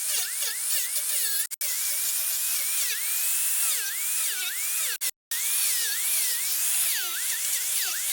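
High-speed rotary carving tool with a burr cutting wood: a high whine whose pitch dips again and again as the burr bites and bogs, then recovers. The sound cuts out abruptly twice.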